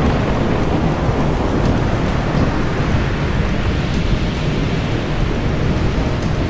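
Storm sound effect: a steady, dense rumble of thunder with heavy rain, loudest in the low end, with no separate claps standing out.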